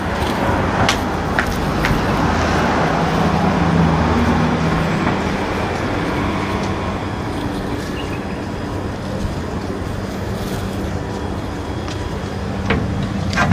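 Steady street traffic noise of vehicles going by, swelling to its loudest around four seconds in. A couple of short clicks sound about a second in.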